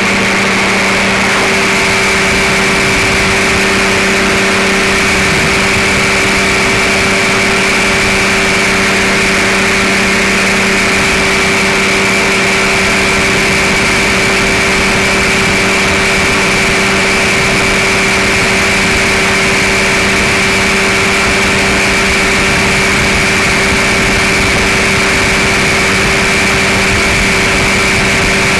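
Powered parachute's engine and propeller running steadily at cruise power in flight, a constant loud drone with an even hum and a high whine that do not change.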